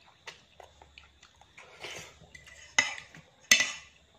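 Metal fork and spoon clinking and scraping against a ceramic plate while noodles are twirled: light scattered clicks, then two sharp ringing clinks in the last second and a half.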